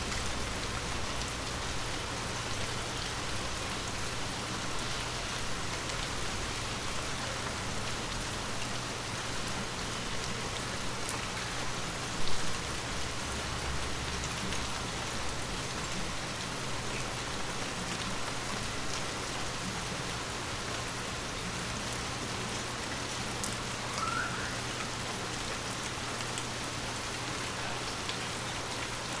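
Steady monsoon rain falling and pattering on surfaces, an even hiss with no let-up, under a faint steady low hum. A single brief thump stands out about twelve seconds in.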